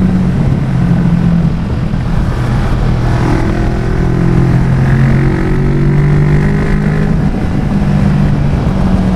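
Kawasaki Vulcan S parallel-twin motorcycle engine running steadily under way, its note changing pitch a few times as the rider goes through the throttle or the gears.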